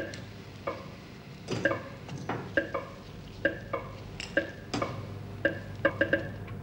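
Steel surgical instruments clinking and tapping against each other in irregular light clicks, several times a second at moments, with a few louder clatters.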